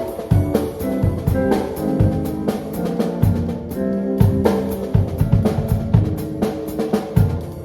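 Live band playing a jazz-style tune: a drum kit keeps time under held, sustained chords and bass notes.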